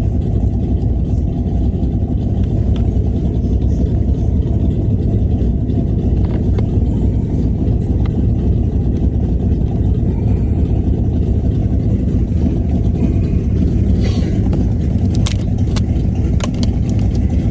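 Engine of a 1966 vehicle running steadily, a loud, even low rumble, with a few light clicks near the end.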